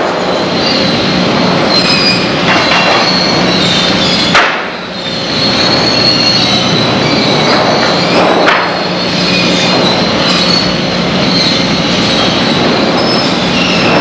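Sawmill machinery running loud and steady, with a low hum, high-pitched metallic squealing that comes and goes, and a few sharp knocks about two and a half, four and a half and eight and a half seconds in.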